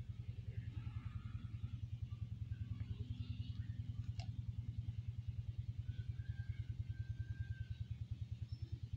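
A small engine running steadily off-camera, heard as an even, rapid low pulse that holds the same speed throughout.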